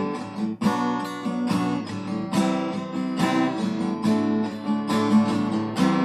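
Acoustic guitar strummed in a steady rhythm of chords, about two strums a second, picked up by a Boya BY-MM1 external mic on a smartphone.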